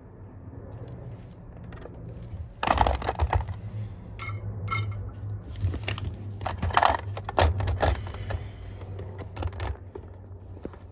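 Irregular clicks, taps and crackles of soldering work on XT60 battery connectors, as the iron, solder and plugs are handled, over a low steady hum. The clicks start about two and a half seconds in and die down near the end.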